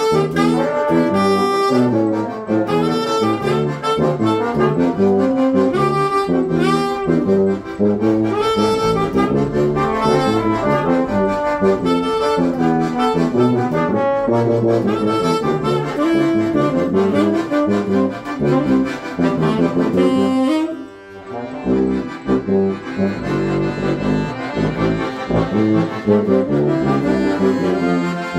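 A small ensemble of two accordions, tenor saxophone, trombone and tuba playing a hymn together in sustained chords. About 21 seconds in the music dips briefly, then carries on.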